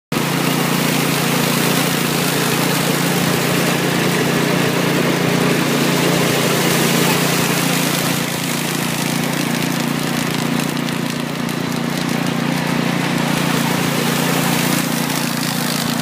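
Mitsubishi rice threshing machine running steadily as sheaves of rice are fed into it: a constant mechanical hum under a dense rattling hiss of stalks and grain going through the threshing drum.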